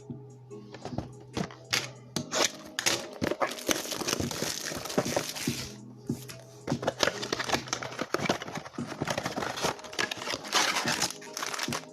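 Foil trading-card pack wrappers crinkling and tearing, with many small clicks and rustles of cards being handled; the rustling is heaviest in two stretches, with a short lull around the middle.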